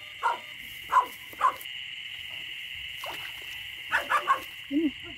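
Frogs calling in a wet rice field after rain. Short, sharp croaks sound several times over a steady high chorus of night insects or frogs, with a quick run of three croaks near the end.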